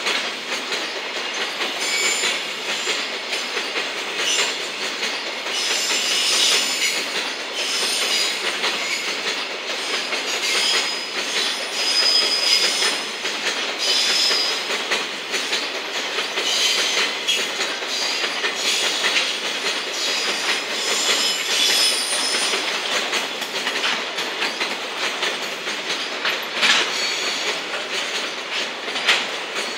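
Container flat wagons of a slow-moving freight train rolling past, wheels clacking over rail joints and points, with high-pitched wheel squeal coming and going on the curve. A sharper knock stands out near the end.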